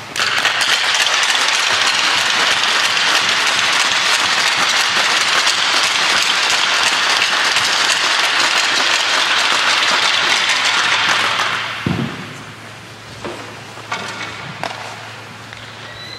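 Crowd applauding. The clapping is loud and steady, then dies down about eleven seconds in to a few scattered claps.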